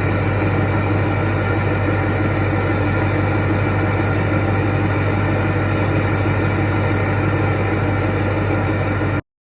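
Ford 6.4 Power Stroke twin-turbo V8 diesel idling steadily. The sound cuts off abruptly near the end.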